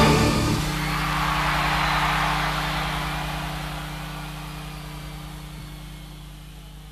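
The end of a live concert song cuts off about half a second in, leaving a large crowd cheering that swells and then slowly fades away. A steady low hum runs underneath.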